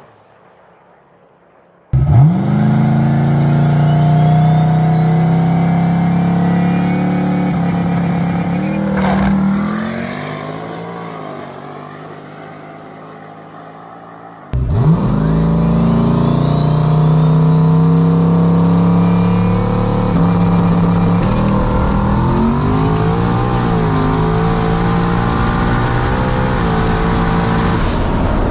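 Turbocharged 5.3-litre LS V8 running hard under full throttle, with a high whine climbing in pitch over the engine note. It cuts in abruptly about two seconds in, trails off, then cuts in again at full power about halfway through.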